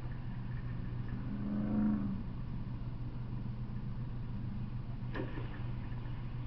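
Steady low hum with a short engine rev that rises and falls in under a second, about a second and a half in, and a single sharp click a little past the five-second mark.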